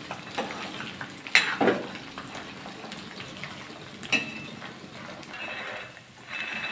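Peanuts frying in ghee in a kadhai: a soft steady sizzle, with a few clicks and scrapes of the ladle against the pan about a second and a half in and again about four seconds in.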